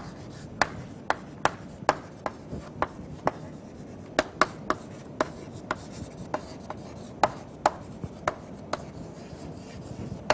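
Chalk tapping and scraping on a chalkboard as words are written by hand: a run of sharp, uneven taps, a couple a second, with a short lull past the middle.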